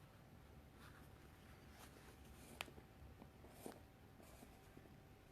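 Near silence: quiet room tone with a faint steady hum, broken by two faint short clicks about two and a half and three and a half seconds in.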